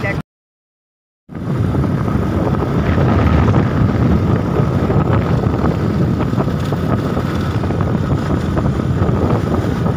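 Wind rushing over the microphone of a camera on a moving motorcycle, with the bike running underneath. The sound cuts out to silence for about a second just after the start, then comes back at the same steady level.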